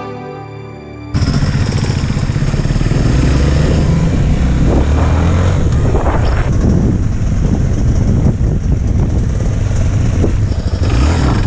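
Background music, then a sudden cut about a second in to an off-road motorcycle riding along a muddy track. Its engine pitch rises and falls with the throttle.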